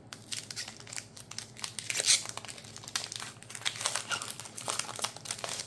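A foil Pokémon booster pack wrapper being torn open and crinkled by hand, a dense run of crackles and rustles.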